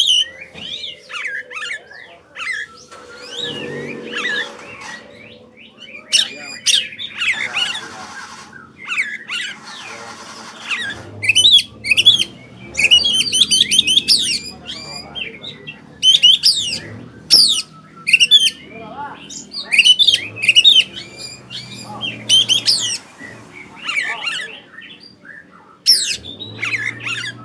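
Oriental magpie-robin (kacer) singing loudly in quick, varied phrases of rapid whistles and trills with short pauses between them, over a faint low hum.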